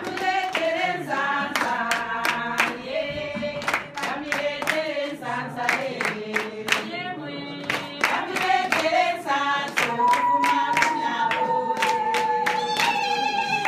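A group of voices singing in chorus to a beat of hand claps, ending on one long held high note from about ten seconds in.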